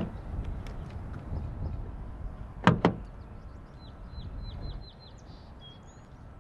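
A Toyota RAV4's door handle is pulled and its latch clicks twice in quick succession while the door stays shut. A quick run of about seven short bird chirps follows, with a low outdoor rumble throughout.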